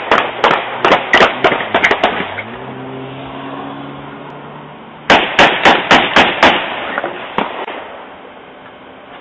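Rapid volley of about eight gunshots, then a second volley of about six shots about five seconds in and a single shot shortly after, picked up by a doorbell camera's microphone. Between the volleys a vehicle engine rises in pitch and holds.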